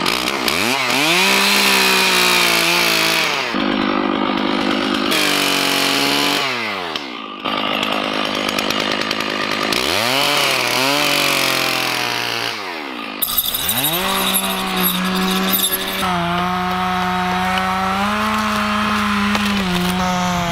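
Stihl two-stroke chainsaw bucking pine logs: the engine revs up to full throttle and runs high through the cut, drops back about seven seconds in, then revs up again twice more, the pitch climbing each time the throttle opens and falling each time it is released.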